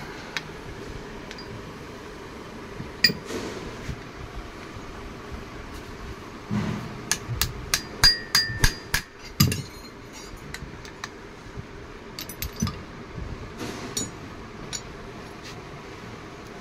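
Hand tools knocking and clinking against the metal clutch parts of a Swift Dzire AC compressor as the clutch is reassembled. There are scattered sharp metallic knocks, with a quick run of louder ones, some briefly ringing, about seven to nine seconds in.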